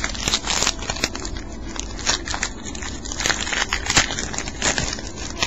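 A trading-card pack's wrapper being torn open and crinkled, an irregular run of crackles and clicks with a few sharper ones spread through.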